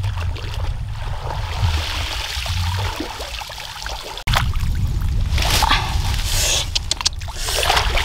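Shallow pond water sloshing and splashing as someone wades through it pulling up water spinach, over a steady low rumble of wind on the microphone. After a sudden cut about four seconds in come louder bursts of splashing and rustling as the wet bundle of water spinach is handled.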